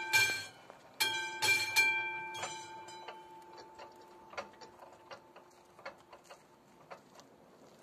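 Classic mechanical bell of a level crossing clanging a few times in quick succession, warning of an approaching train while the barrier arms lower. It stops about two seconds in and its ring fades slowly, leaving faint irregular ticking.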